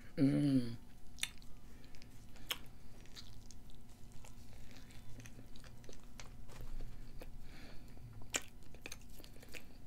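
A person biting into a cheeseburger and chewing it, with wet mouth sounds and scattered sharp clicks.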